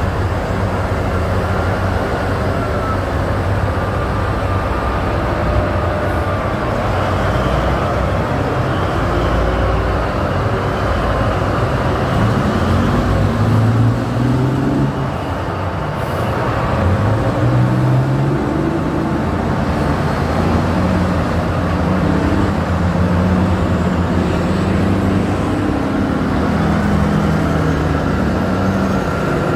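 Big diesel engines of mining haul trucks running as they drive past, the engine note rising and falling a few times partway through as a truck pulls away.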